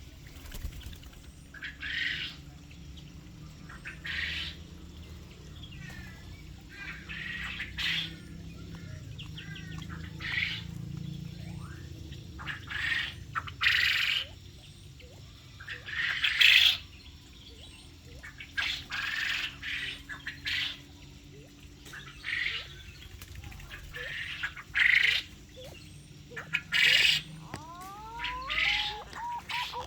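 Aviary birds squawking with short, harsh calls every second or two, and a few quick chirps near the end.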